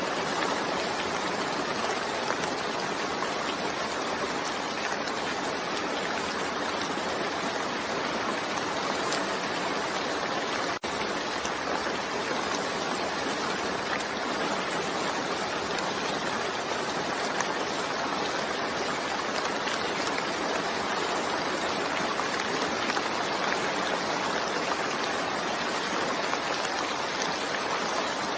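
Steady, continuous rain: an even hiss with no lulls, broken only by a split-second dropout about eleven seconds in.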